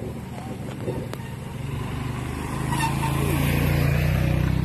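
Motorcycle engine running at a steady pitch, growing louder from about two seconds in.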